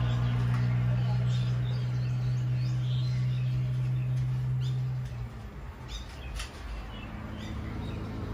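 Birds chirping in short calls scattered throughout, over a steady low drone that stops about five seconds in.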